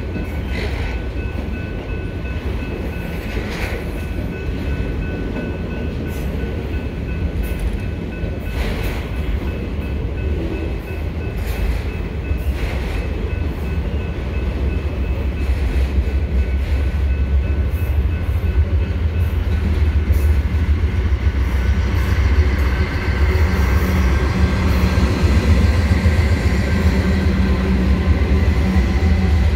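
Slow freight train rolling past: its cars rumble and clank on the rails. In the last several seconds a mid-train Union Pacific diesel locomotive comes alongside, and its engine grows louder.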